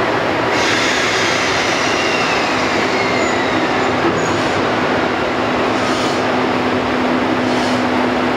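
EF65 electric locomotive running with a steady loud mechanical noise and a low hum as it stands and then starts to creep forward, with a faint falling whine in the first few seconds.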